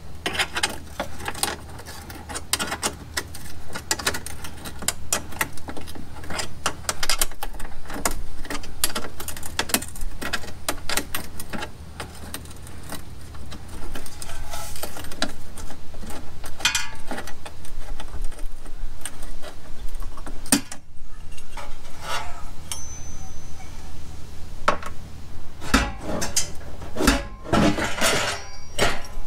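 Irregular metallic clicking, clinking and knocking of a socket wrench and hand tools on the bolts of a car exhaust, with the exhaust pipes knocking as they are worked loose. The clicks are dense for much of the time, with a short lull about two-thirds of the way through.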